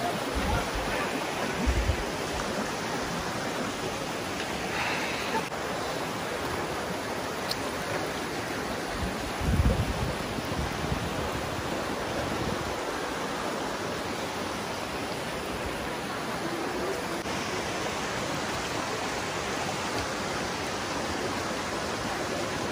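Creek water rushing steadily over rocks. A few short low thumps on the microphone: one near the start, one about two seconds in, and one near the middle.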